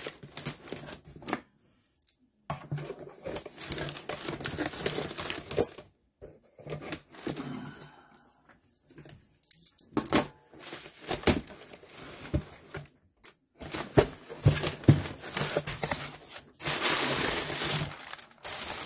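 Packing tape being torn and peeled off a cardboard shipping box, with the cardboard flaps scraping and crackling as they are pried apart and folded open. The sounds come in irregular spells with short pauses, and a denser run of rustling and scraping comes near the end.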